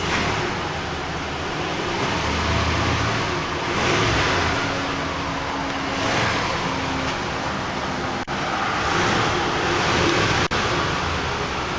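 1990 Cadillac Brougham's 5.0-litre V8 running and being revved a few times, the revs swelling and falling back, under a steady wash of wind noise on the microphone.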